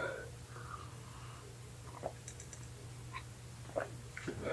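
Faint scattered clicks and short soft mouth and breath sounds from a person whose mouth is burning from a hot pepper, over a low steady hum.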